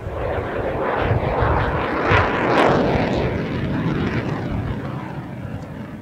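F-22 Raptor's twin Pratt & Whitney F119 turbofan engines roaring on a fly-by. The jet noise swells, is loudest about two and a half seconds in, then fades as the fighter passes.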